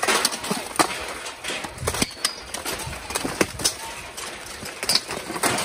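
Armored melee: steel plate armor, helmets, weapons and shields clanking and striking, an irregular run of sharp metal impacts with no steady beat.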